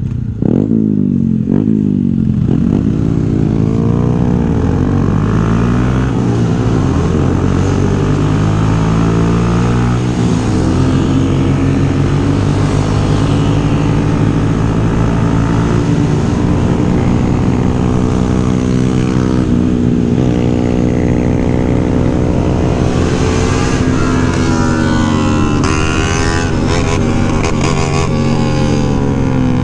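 Motorcycle engine heard from the riding bike itself, revving up and falling back as it accelerates and changes gear, with a steadier stretch of cruising in the middle.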